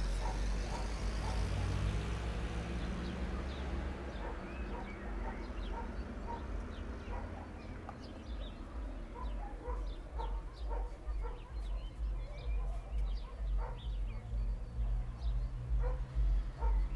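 Birds chirping and calling in short, scattered notes, over a low rumble of wind buffeting the microphone that gusts harder toward the end.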